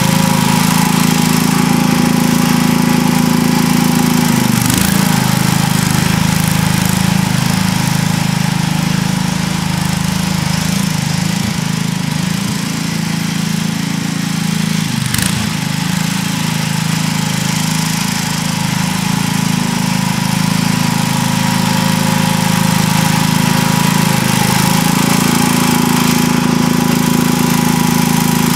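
Sears ST16 garden tractor engine running steadily under load while plowing, its pitch sagging briefly a couple of times as the plow bites. It grows somewhat quieter around the middle as the tractor works at the far end of the plot.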